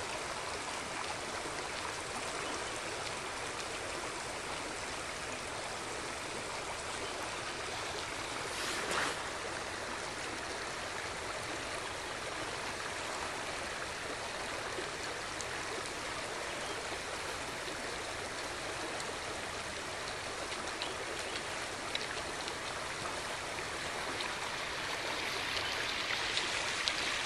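Steady rush of flowing creek water, with a brief louder swish about nine seconds in and the rush growing louder near the end.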